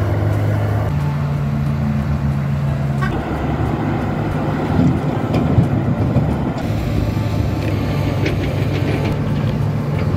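Diesel engines of heavy earthmoving machines running: a Komatsu GD555 motor grader and a Hidromek crawler excavator, a steady low engine drone whose note shifts abruptly a few times.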